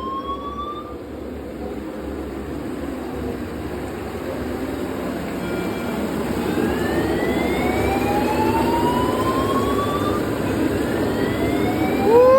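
Steady rush of water gushing from a burst fire-sprinkler pipe, growing louder over the first several seconds. Over it a fire alarm sounds a slow rising whoop tone several times.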